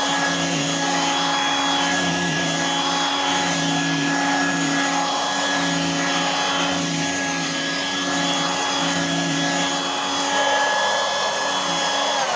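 A Royal Dirt Devil Hand Vac Model 103, with a 2-amp motor, running steadily while it vacuums carpet. Its pitch wavers slightly as the nozzle is worked back and forth over the pile.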